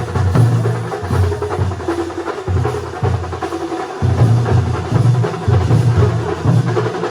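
Percussion troupe drumming fast and loud, with heavy low drum beats coming in quick clusters over a dense rattle of sticks.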